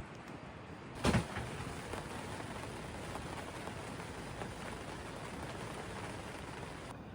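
Rain falling steadily, a dense patter of many small drops, with one sharp thump about a second in; the patter cuts off suddenly near the end.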